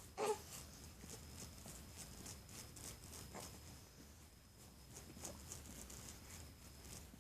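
Faint, soft rhythmic patting, about three taps a second, from bouncing and patting a young baby to bring up a burp, with a brief pitched baby sound right at the start.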